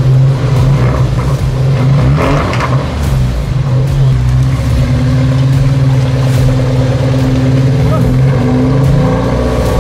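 Off-road 4x4's engine running steadily at low revs, its pitch rising slightly about eight seconds in.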